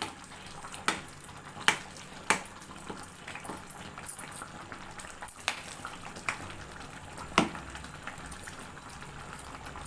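A metal ladle stirring cooked rice and dal into simmering sambar in an aluminium kadai, giving a few sharp clinks against the pan over a soft, steady bubbling.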